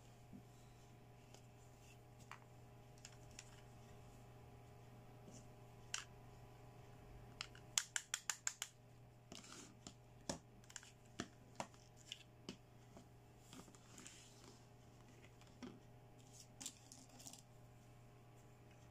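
Small pink plastic toy doll accessories (combs, hairbrushes, hand mirror, toy hair dryer) clicking and tapping against each other as they are picked up, sorted and set down, with a quick run of about seven clicks near the middle. A faint steady hum runs underneath.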